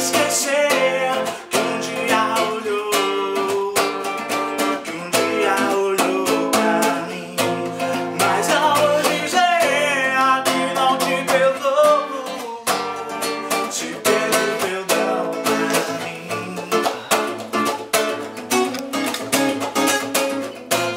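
Instrumental passage of a song, led by plucked guitar-like strings playing a melody over chords, with no lyrics sung.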